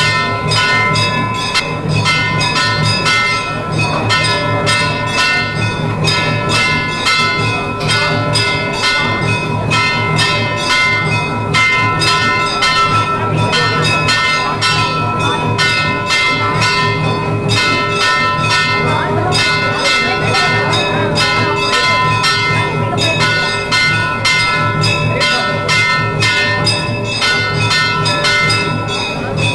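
Temple bells ringing fast and without a break, struck several times a second, with a low steady rumble beneath them.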